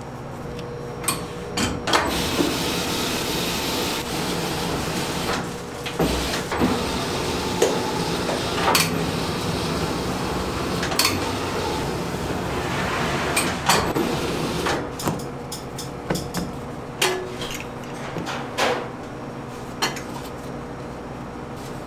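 Kitchen work clatter: repeated sharp knocks and clinks of tools, pans or moulds being handled, with two longer stretches of steady hiss, over a faint steady machine hum.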